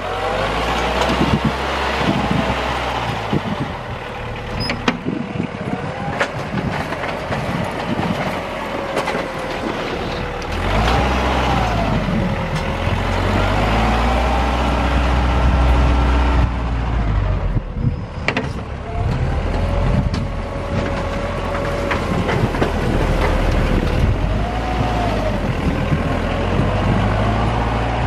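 Compact loader tractor's engine running under load while it pushes snow with a front-mounted Myers truck plow, with a whine that rises and falls as the engine speed changes.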